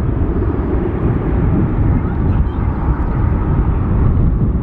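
Twin-engine jet airliner climbing out after takeoff: a loud, steady low jet-engine rumble.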